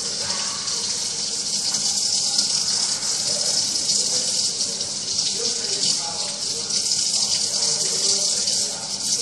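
Kitchen tap running steadily into the sink, with hands being rinsed under the stream.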